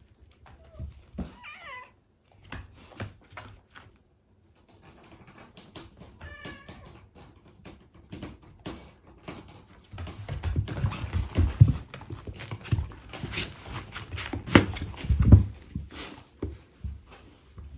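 A cat meows twice, once with a falling meow early and once with a short wavering trill about six seconds in. From about ten seconds on come a run of dull low thumps and scuffing, the loudest sound here.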